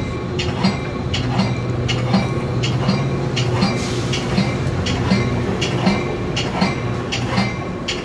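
Commuter train's bell ringing steadily, about one strike every three-quarters of a second, as the train rolls slowly into the station, over a low steady hum from the moving train.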